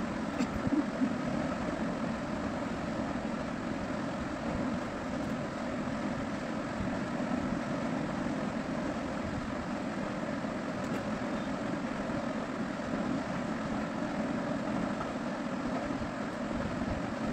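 A steady mechanical drone with a faint hum in it, unchanging throughout.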